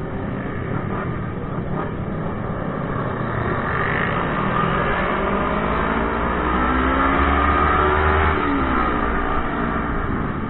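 Motorcycle engine running under way, mixed with rumbling wind noise. About four seconds in, the engine revs up, its pitch climbing until near eight seconds, then it falls away.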